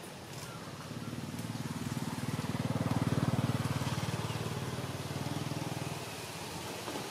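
A motor vehicle's engine passing by: a low, rapidly pulsing drone that grows louder over a couple of seconds, then fades away.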